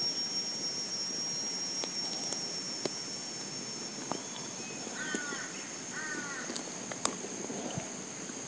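Steady high-pitched drone of insects, with a bird giving two short runs of falling chirps about five and six seconds in, and a few sharp clicks.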